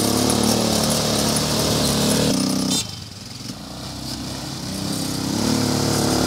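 250cc ATV quad bike engines running close by, a steady engine drone with wavering pitch. The sound drops away suddenly about three seconds in, then builds again as a quad comes up close.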